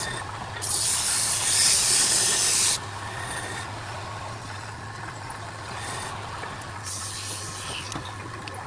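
Woodturning lathe motor running with a steady low hum, and two loud bursts of hissing, one about half a second in lasting about two seconds and another near the end.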